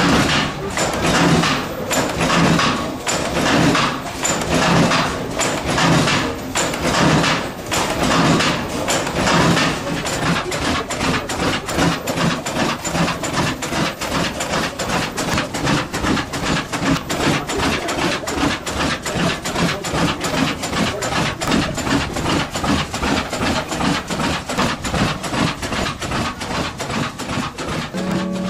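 Giant De La Vergne single-cylinder oil-burning engine running: a rhythmic mechanical knocking and clattering from its valve gear, with a heavier beat about once a second at first, turning into a faster, more even clatter about ten seconds in.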